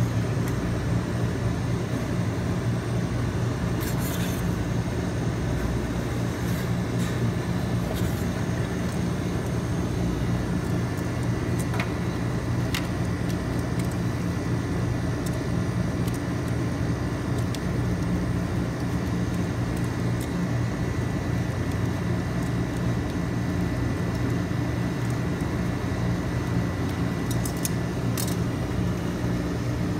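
Steady low mechanical hum of a rolled ice cream machine's refrigeration unit running under its frozen pan, with a few short clicks of metal spatulas.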